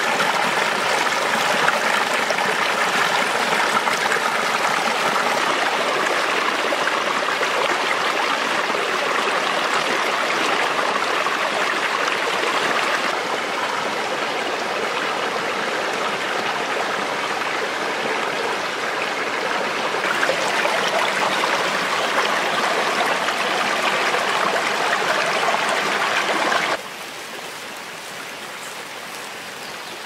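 Stream water rushing and splashing over rocks, a steady loud rush, with small shifts in level at about 13 s and 20 s. About 27 s in it cuts suddenly to a quieter steady hiss.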